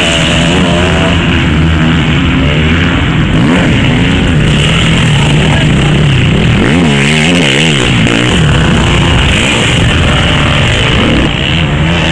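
Motocross bikes' engines racing on a dirt track, revving up and down as the throttles open and close. One bike close by rises and falls steeply in pitch about seven seconds in as it accelerates past.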